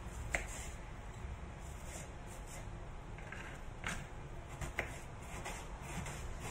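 Kitchen knife dicing an onion on a wooden cutting board: light, irregular taps of the blade on the board, with three sharper knocks about a third of a second in, near four seconds and near five seconds.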